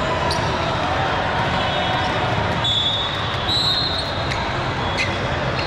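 Indoor gym game ambience: steady murmur of spectators, shoes squeaking on the court floor, and a couple of sharp ball impacts.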